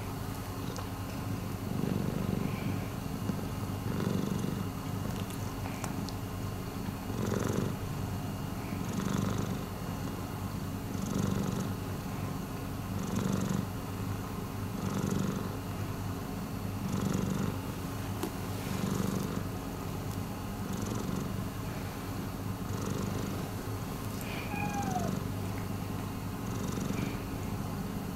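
Long-haired domestic cat purring steadily, close up, the purr swelling with each breath about every two seconds.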